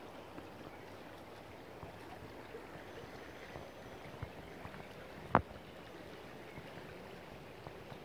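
Stream water flowing steadily, with a single sharp click about five seconds in.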